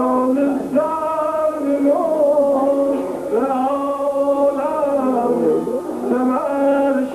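Male voice singing a Yarsan sacred devotional chant with tanbour accompaniment, long held notes that bend and slide between pitches.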